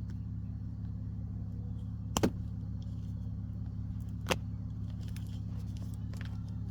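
Two sharp snips, about two seconds apart, of diagonal cutters cutting the metal staples off a shift boot, over a steady low hum.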